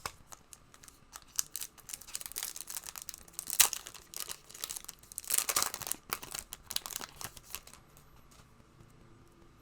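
Foil trading-card pack being torn open and crinkled: a run of crackling and tearing, loudest about three and a half seconds in and again around five to six seconds, dying away near the end.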